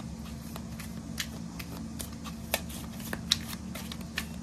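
A deck of tarot cards being shuffled by hand: irregular soft flicks and slaps of cards, with sharper ones about two and a half and three and a half seconds in, over a faint steady hum.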